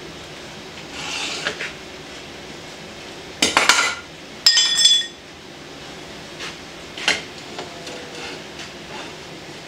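Heavy metal drill press vises clanking as they are lifted off and set onto the metal drill press table: a quick rattle of knocks a few seconds in, then a ringing metallic clank, the loudest sound, followed by a few lighter knocks.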